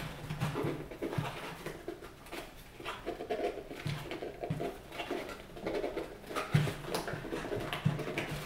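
Cardboard rustling, scraping and tapping as a small cardboard box is turned over and pried open by hand, with short low hums mixed in.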